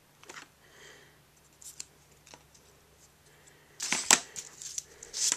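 Mostly quiet handling with a few faint clicks. Near the end comes a short, crisp crunch of card or paper being cut, then a smaller one.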